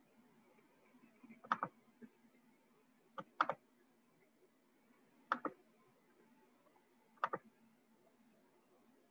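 Four sharp computer clicks, each a quick pair of clicks, about two seconds apart, over a faint steady hum.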